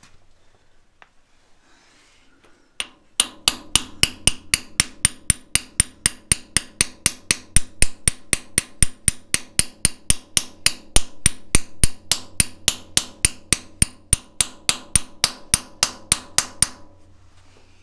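Ball-pein hammer tapping a lathe-turned punch to drive a brake shaft bush into the cast iron housing of a Massey Ferguson 35: one tap about three seconds in, then rapid, even taps, about four a second, that stop shortly before the end as the bush goes in flush.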